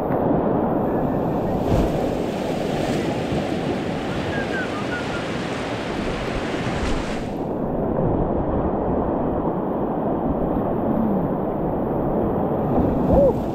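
Rushing whitewater of river rapids, heard close up through a helmet-mounted GoPro with wind buffeting the microphone. A brighter hiss of spray from about two seconds in to about seven seconds, and a brief louder moment near the end.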